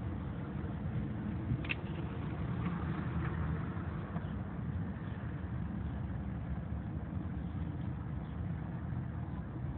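Steady low background rumble throughout, with a short click and a soft paper rustle about two seconds in as a page of a CD booklet is turned.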